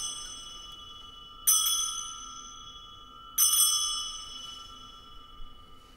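Altar bell rung three times, about two seconds apart, each stroke left to ring out with clear high tones. It marks the elevation of the chalice at the consecration of the Mass.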